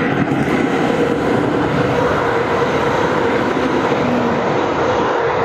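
Tren Maya passenger train passing at speed close by: a loud, steady rush of wheels on rail with a held hum.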